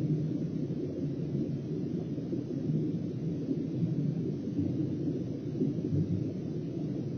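Steady low underwater rumble picked up by an underwater fishing camera's microphone beneath the ice.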